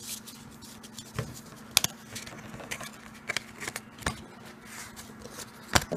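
Trading cards being handled: scattered crisp clicks and rustles of card stock, with a faint steady hum underneath.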